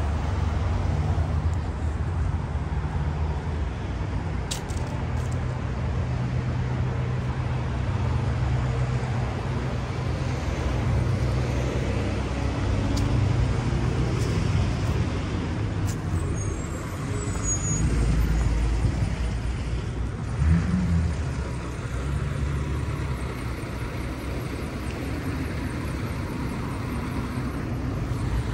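Street traffic: cars and pickup trucks passing and idling, their engines giving a steady low rumble, with a brief louder thump about twenty seconds in.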